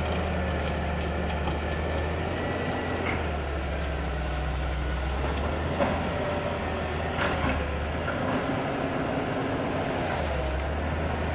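Excavator running: a steady diesel engine hum that shifts in pitch a few times as the load changes, with a few short metallic knocks and squeaks, about three seconds, six seconds and seven seconds in.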